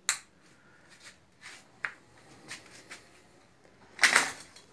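A wall light switch clicks once, sharply, at the start. Faint scattered ticks and rustles of handling follow, with a short louder rustle about four seconds in.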